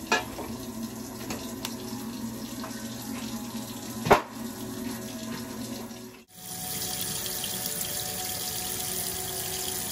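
Kitchen tap running into the sink as raw chicken legs are rinsed in a colander, with a couple of sharp knocks from handling. About six seconds in the sound breaks off sharply and comes back as a steadier, brighter stream of running water.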